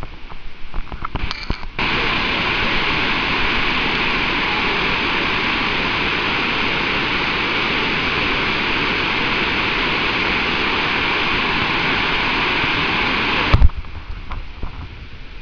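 Steady roar of Victoria Falls' water crashing into the gorge, starting abruptly about two seconds in. It stops suddenly near the end with a sharp click, leaving quieter rustling.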